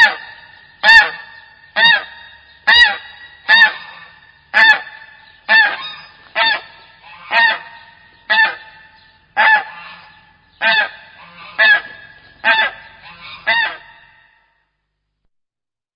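A goose honking: about fifteen short, loud honks, roughly one a second, each rising and falling slightly in pitch, stopping shortly before the end.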